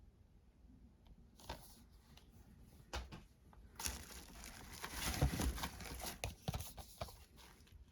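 Packaging crinkling and rustling as it is handled while discs are unboxed, with a couple of sharp clicks first and then a busier crackling stretch of a few seconds.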